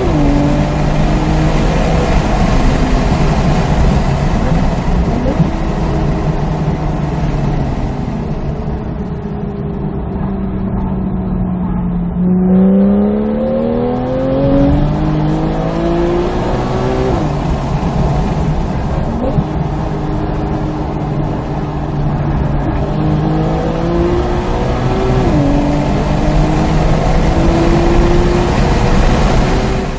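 2016 Porsche 911 GTS's flat-six engine heard from inside the cabin on track. It climbs in pitch and drops back at an upshift right at the start, falls away off the throttle through a slow corner, then pulls hard again from a little before halfway, with two more upshifts, each a sudden drop in pitch.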